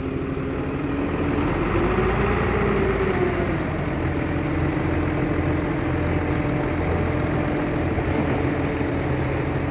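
Heavy earthmoving machine's diesel engine running steadily, revving up once about two seconds in and easing back down.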